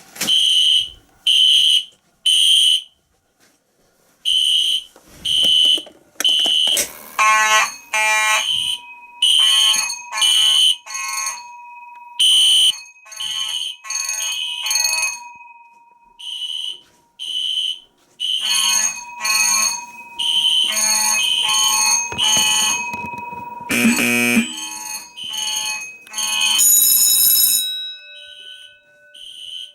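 Several fire alarm horns and horn strobes sounding at once, loud and overlapping. They give repeating high-pitched beeps, some buzzier than others, with a steady lower tone held through the middle.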